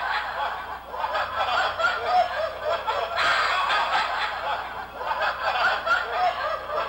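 Laughter running without a break after a punchline.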